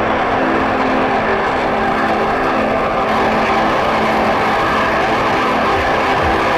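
Underwater cavitation cleaning jet running steadily, a dense, even roar with a hum through it, as the lance blasts marine growth off an anchor chain.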